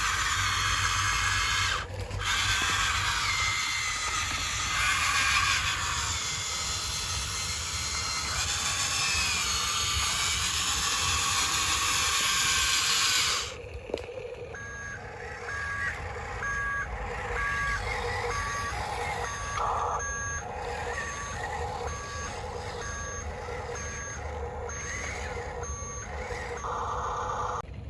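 Reversing beeper of a radio-controlled model truck sounding a steady beep about once a second. For the first half a loud whirring hiss plays instead, then cuts off suddenly before the beeping starts.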